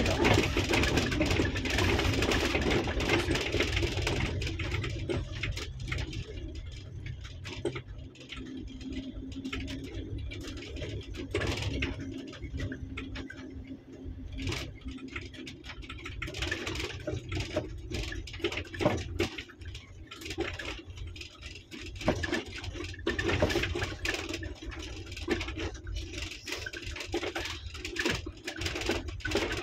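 Car driving along a gravel dirt track, heard from inside the cabin: engine running and tyre noise on the loose stones, with scattered small clicks and knocks. Louder for the first few seconds, then a little quieter.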